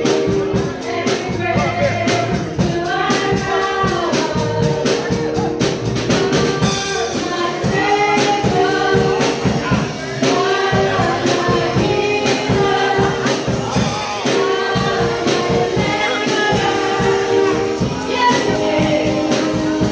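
Live gospel music: voices singing together over a steady beat with a tambourine shaking in time, and held chords underneath.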